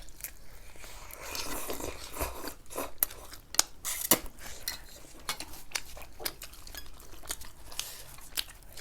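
Close-miked eating: biting and chewing crisp fried sefali pastry, with many short sharp clicks and cutlery tapping against dishes.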